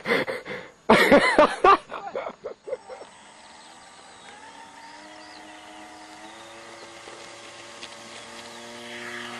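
Loud laughter for about the first three seconds. After that, a radio-controlled model tow plane's motor runs on the ground as a steady hum, rising a little in pitch and growing louder near the end as it powers up for an aerotow takeoff.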